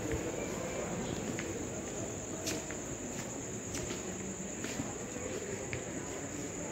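Crickets trilling in one steady, high-pitched drone, with a few faint clicks over a low background hum.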